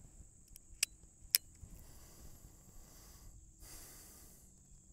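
Two sharp metallic clicks about half a second apart: the hammer of an Armi San Paolo replica Colt 1860 Army percussion revolver being thumbed back to cock it for the next shot.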